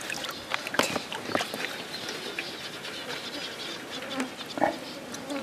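Insects buzzing, with scattered light clicks and taps.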